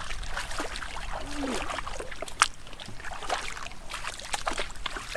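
Water sloshing and splashing as people wade through shallow, muddy pond water, with a sharp click about halfway through. Near the end water runs out of a tipped plastic bucket.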